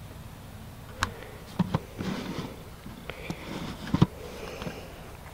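Three or four light, sharp taps and clicks over a quiet outdoor background, the loudest about four seconds in: a golfer handling the ball, tee and driver while teeing up.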